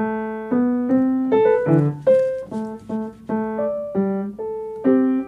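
A child playing a simple melody on an upright piano: single notes, a few a second, with a quicker run of notes about one and a half seconds in.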